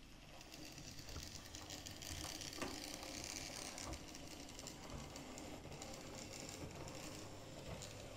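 OO gauge model locomotive running along the track: a faint whir from its small electric motor and gearing, with the odd sharp click of wheels over rail joints and points.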